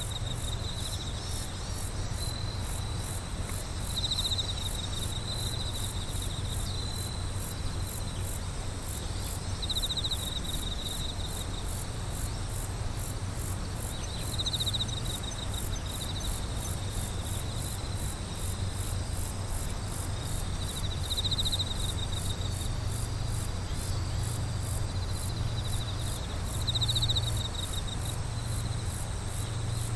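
Chorus of night insects chirping. A high, rapid pulsing call runs on evenly, and a lower trill of about a second comes in every five or six seconds, over a steady low hum.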